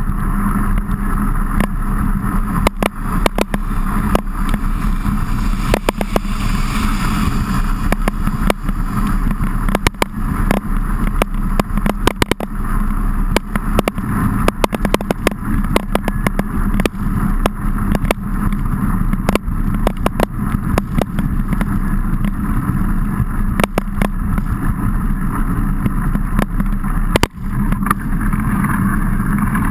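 Mountain bike being ridden in the rain, heard from a camera mounted on the bike: steady tyre and wind noise with many short clicks and knocks as the bike jolts along.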